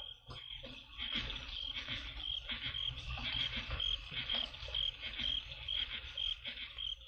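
A cricket chirping steadily, a high chirp repeating about two to three times a second, over a low hum with soft knocks and rustles.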